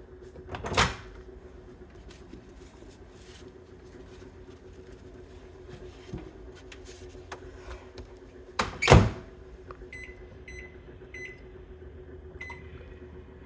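Microwave oven running with a steady hum. There are two knocks, the louder about nine seconds in, and then several short, high beeps.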